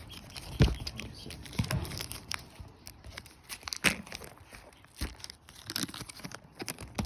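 A small plastic baggie being torn open and crinkled by hand, with irregular crackles and a few sharper snaps, as the handcuff key inside is taken out.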